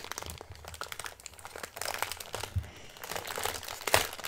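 Clear plastic packaging bag crinkling and rustling as fingers pull its sealed top open, with one louder sharp crack near the end.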